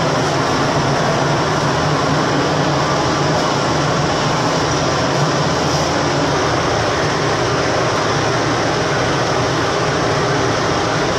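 LPG-fired cremation machine running: a steady rushing noise with a low hum underneath, unchanging throughout.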